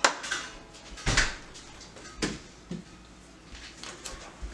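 Sliding patio door panel knocking and clunking in its frame track as it is worked to lift it out: four or five sharp knocks spread over a few seconds.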